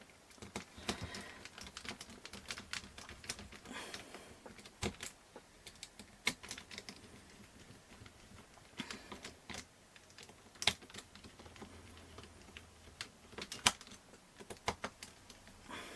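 Irregular light clicks and taps of small 3D-printed plastic parts and screws being handled and fitted together by hand, with a few sharper clicks standing out.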